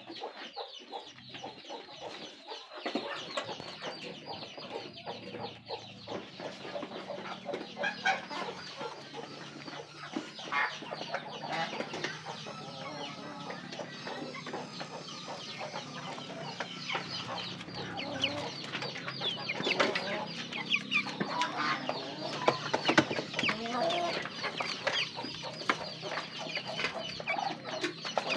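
A flock of chickens clucking and calling continuously, over a dense run of quick small clicks that gets busier toward the end.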